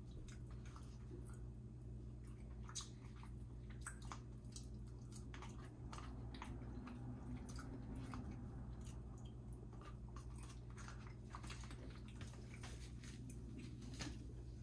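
A person chewing fast food, with scattered soft mouth clicks throughout, over a steady low hum.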